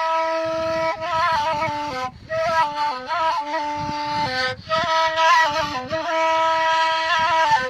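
Gasba, the long end-blown cane flute of the Maghreb, playing a stepping melody in held and quickly changing notes, with two short pauses about two and four and a half seconds in.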